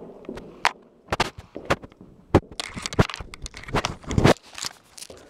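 Camera handling noise: irregular sharp knocks and crackling rustle as the camera is moved about and something rubs against its microphone.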